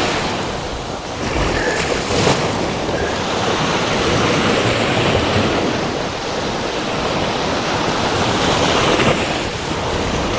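Ocean surf washing onto a beach, swelling and easing, with wind buffeting the microphone.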